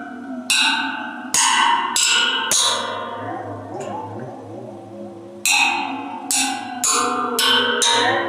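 Waterphone with water in its stainless steel resonator, its steel rods struck one after another: four quick strikes, a pause of about three seconds in which the ringing tones waver up and down in pitch, then five more strikes. Each strike rings on in overlapping metallic tones.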